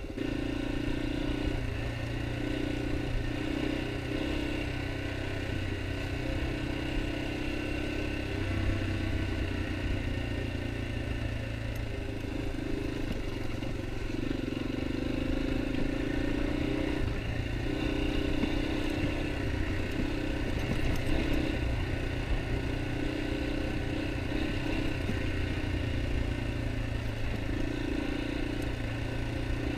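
Yamaha XT250's single-cylinder four-stroke engine running steadily under way on a dirt road, with only small rises and falls in engine speed.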